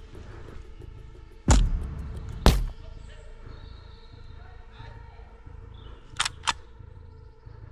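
Two loud pops about a second apart from an HPA-powered lever-action airsoft sniper rifle, then two quick sharp clicks a few seconds later, over steady background music.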